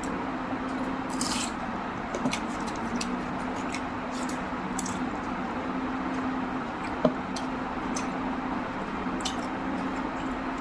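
Wet, squishy chewing and mouth clicks of someone eating rice and mutton curry, with scattered short smacks and one sharper click about seven seconds in, over a steady low hum.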